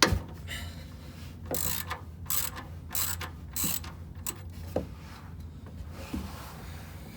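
Ratchet wrench with a 16mm socket clicking in about four short bursts of strokes as a fastener is turned, after a sharp metallic knock at the very start.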